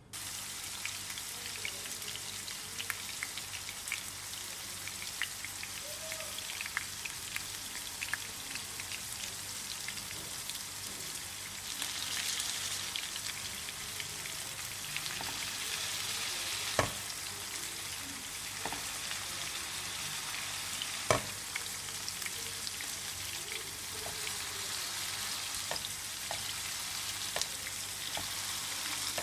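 Peshawari chapli kababs shallow-frying in hot oil: a steady sizzle with scattered small crackles and pops, and two sharp clicks in the second half.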